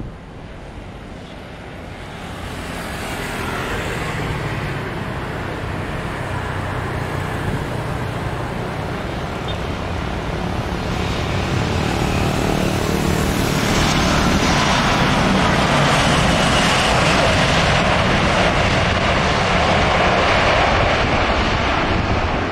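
Airbus A320 jet airliner coming in to land, its jet engine and air noise a steady rushing that grows louder as it nears. About halfway through, as it touches down and rolls out on the runway, the noise becomes louder and stays loud to the end.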